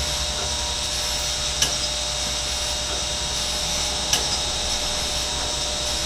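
Chevalier 2A618 hydraulic surface grinder grinding steel: a steady spindle hum with a high hiss from the wheel on the work, and two sharp clicks about every two and a half seconds.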